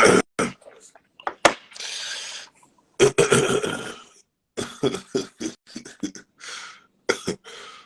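A man coughing and clearing his throat in many short, sharp bursts.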